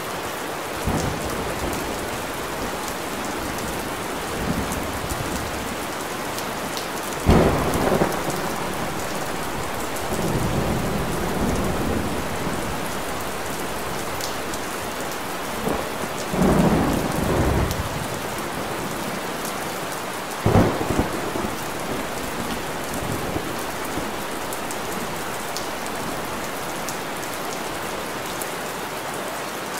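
Steady heavy rain hissing, broken four times by short, louder low rumbles lasting a second or two each.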